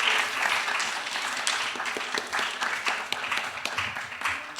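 Audience applauding, the dense clapping thinning out to scattered claps and fading away.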